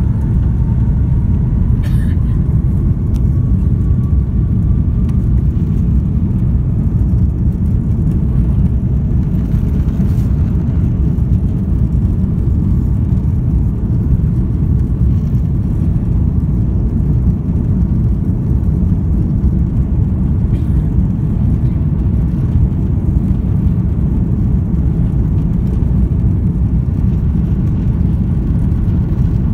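Steady low rumble of an Airbus A330-300 taxiing, heard inside the cabin: its engines running at taxi power and its wheels rolling on the taxiway. A faint whine rises slightly over the first few seconds.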